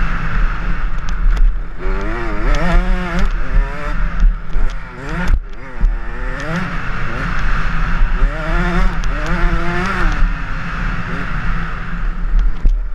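Motocross bike engine revving up and dropping back again and again as the rider accelerates and shifts through the gears, with wind buffeting the helmet-mounted microphone.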